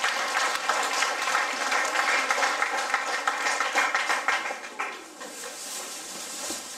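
Hall full of schoolchildren applauding, the clapping dying down about five seconds in.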